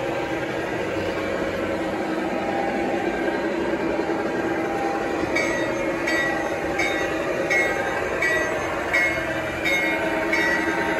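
Garden-scale model trains running on outdoor track, with a steady rolling hum. From about five seconds in comes a regular clicking, roughly one and a half clicks a second.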